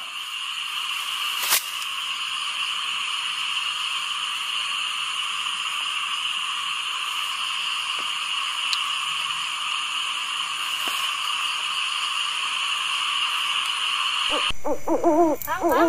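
A steady, high-pitched hissing drone, with a faint click about a second and a half in and another near eleven seconds. It cuts off sharply near the end.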